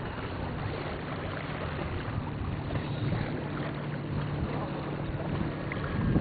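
Steady low motor drone with wind noise on the microphone.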